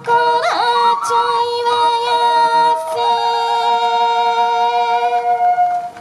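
Yokobue bamboo transverse flutes holding long closing notes together after the taiko drums stop, with a quick glide about half a second in. The notes cut off near the end.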